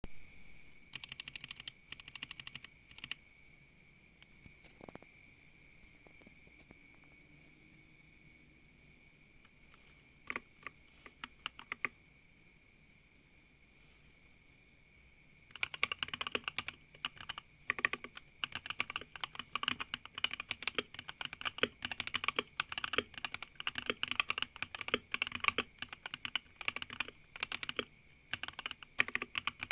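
Mechanical keyboard with yellow switches being typed on: a few scattered keystrokes, a pause, a short flurry, then fast continuous typing from about halfway through. A steady faint high-pitched whine runs underneath.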